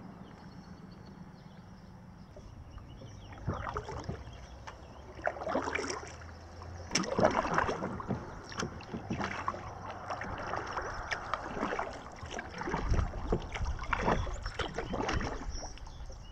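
Kayak paddling on flat water: the paddle blades dip and splash in an irregular rhythm, with water dripping off them. The strokes start a few seconds in.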